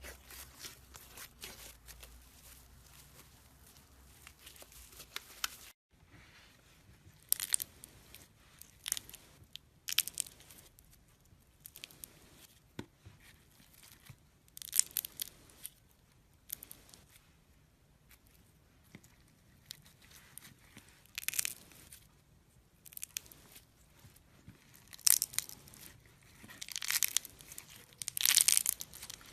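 Slime being squished and stretched by hand, making irregular crackling, crunching bursts. The texture changes abruptly about six seconds in, and the bursts are loudest near the end.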